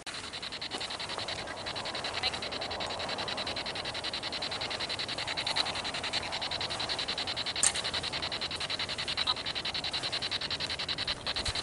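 A steady, fast-pulsing high trill of a calling animal chorus, with one sharp click about two-thirds of the way through.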